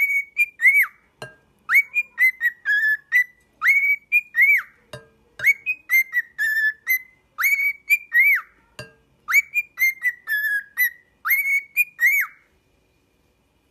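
Cockatiel whistling a short tune of rising and falling notes, repeating the same phrase about every two seconds, with a few faint knocks between phrases. The whistling stops near the end.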